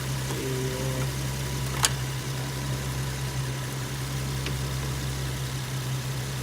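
Car engine idling steadily with a low, even hum. A sharp click sounds about two seconds in, and a fainter one about four and a half seconds in.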